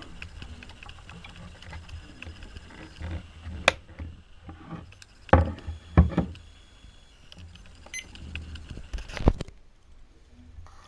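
Handling noise from an XHDATA D-808 portable radio while its 18650 battery is fitted and the battery compartment closed: several sharp plastic clicks and knocks, with quieter rubbing and fumbling between them.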